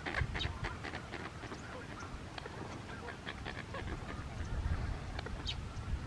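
A scattered chorus of many short bird calls, honk- and quack-like, over a low rumble.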